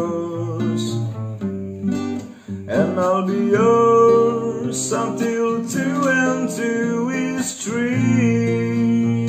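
Song with a strummed acoustic guitar carrying the music.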